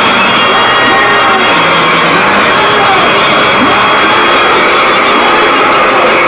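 Live harsh noise music: a loud, unbroken wall of distorted noise with steady feedback whines and pitches that sweep up and down.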